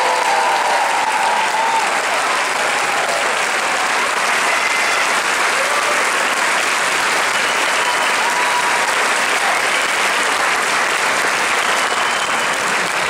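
Large audience applauding steadily and densely.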